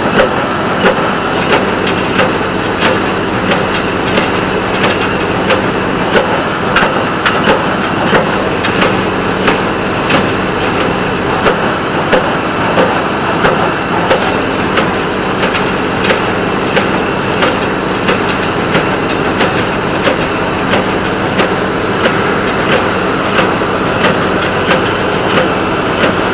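Small square hay baler running behind a three-cylinder tractor: a steady engine drone with the baler's plunger knocking about once every 0.7 seconds as it packs hay into the bale chamber.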